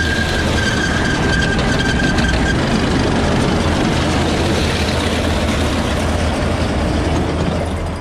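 Tractor and New Holland 848 round baler running steadily under power, with a high steady squeal over the first two seconds or so that fades away.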